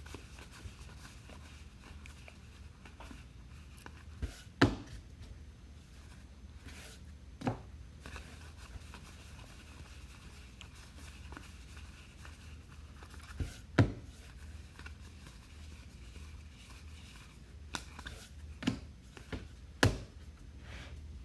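Trading cards and card packs being handled on a table: faint rustling and a handful of sharp taps and knocks spread out, the loudest about four and a half and fourteen seconds in, over a steady low hum.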